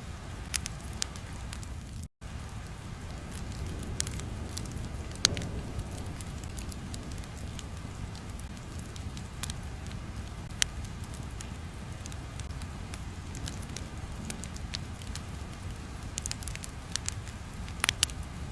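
Crackling fire ambience: a steady low rumble with scattered sharp pops and snaps, cutting out for a split second about two seconds in.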